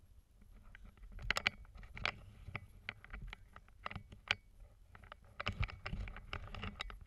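Irregular footsteps, clacks and scrapes on a railroad bridge's steel-grating walkway and wooden ties, coming in small clusters of sharp knocks, over a low wind rumble on the microphone.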